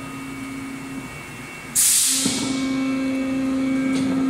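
PET preform injection moulding machine running through its cycle: a steady hum, then a sudden loud hiss of air about two seconds in that fades over about half a second. A louder steady hum at the same low pitch comes up right after and holds.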